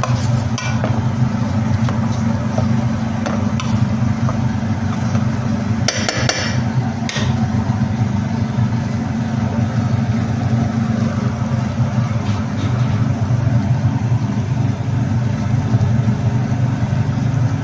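A steady low hum runs throughout, with a few sharp knocks of a wooden spatula against the metal pan as chicken pieces are stirred in sauce: a couple near the start and a short cluster about six seconds in.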